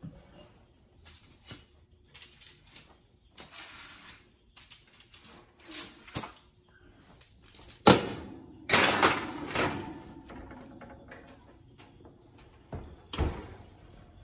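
A foil-lined metal baking sheet of cookie dough being handled and slid into an open oven: clattering and scraping of metal with foil rustle, loudest about eight to ten seconds in. A single thud near the end as the oven door shuts.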